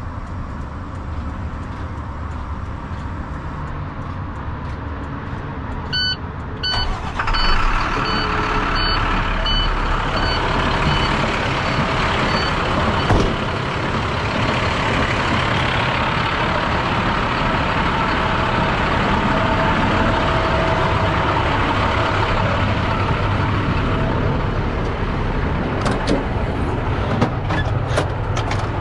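International truck's diesel engine started with the key: a run of short dashboard warning beeps about 6 seconds in, the engine catching a second later and then running steadily at idle. A few metallic clicks near the end.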